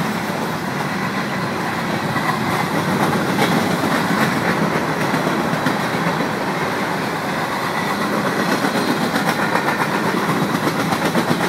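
Freight train's covered hopper cars rolling past close by: steel wheels rumbling on the rails and clicking over the joints, with a pulsing rhythm in the last few seconds.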